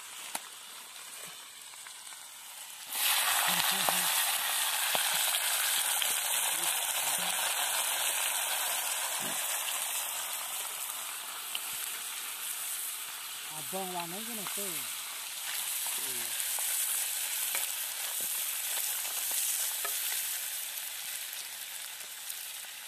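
Crabs frying in a hot iron wok over a wood fire: a loud sizzle starts suddenly about three seconds in and carries on steadily while they are stirred with bamboo sticks.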